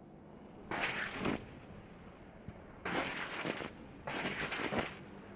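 Three short bursts of rapid-fire gunfire, each lasting under a second, from an AH-64 Apache's 30 mm chain gun, over a faint steady background.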